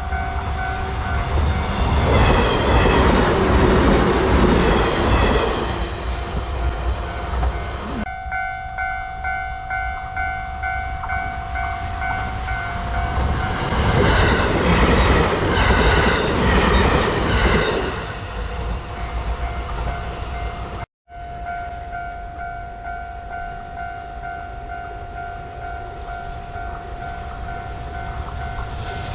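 Japanese level-crossing warning bell ringing on and on, while a train runs over the crossing with its wheels clacking. The train noise is loudest twice, about 2–6 seconds and 14–18 seconds in. The sound drops out for a moment about 21 seconds in, and the bell goes on after.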